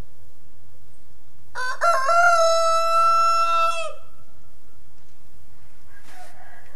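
Rooster crowing once: a cock-a-doodle-doo of about two seconds starting about a second and a half in, a few short stepped notes and then one long held note that drops off at the end.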